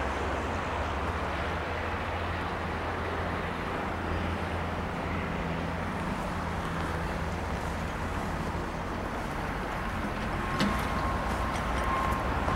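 Komatsu PC30FR mini excavator's diesel engine idling steadily, with a brief click near the end.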